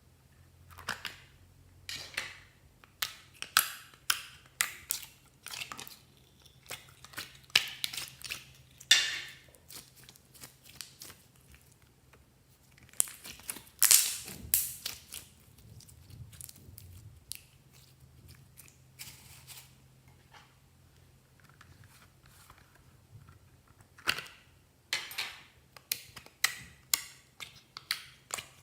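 Slime being squeezed and pressed by hand, giving irregular clusters of sharp crackles and pops. The pops come thickly in the first ten seconds, peak in a loud burst in the middle, go quiet for several seconds, and pick up again near the end.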